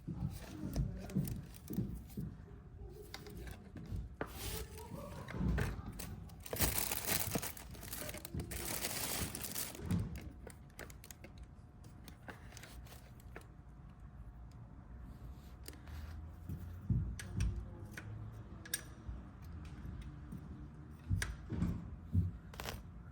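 Hands-on work at a motorcycle's primary oil drain: scattered clicks and knocks of tools and parts. About seven seconds in comes a rushing noise that lasts about three seconds.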